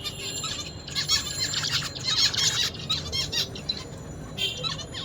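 Zebra finch singing: a run of rapid, high buzzy chirping notes that lasts a couple of seconds, then a short burst of song near the end.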